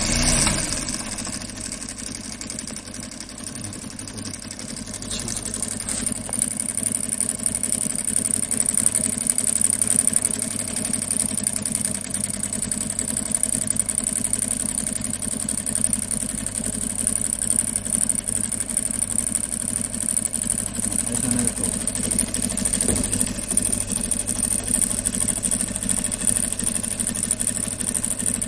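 Golden Wheel CS-5800 single-needle industrial sewing machine running continuously, with a dense, rapid mechanical rhythm and a steady high whine. It starts abruptly and gets louder over the first several seconds.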